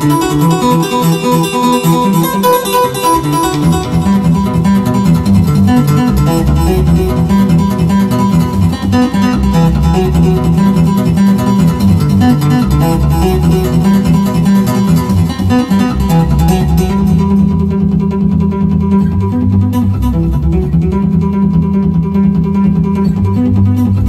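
Solo steel-string acoustic guitar played fingerstyle in a fast, busy passage, with low bass notes coming in about four seconds in under the melody.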